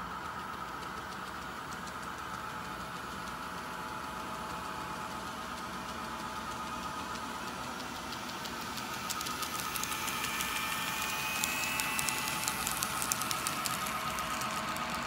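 N scale model train running: a steady whine from the locomotive. It grows louder as the train comes close, with fast fine clicking of the wheels over the track from about nine seconds in.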